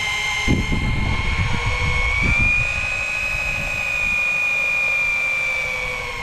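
A motor whining steadily at a high pitch, rising slightly about two seconds in and then holding, with low rumbling knocks underneath in the first couple of seconds.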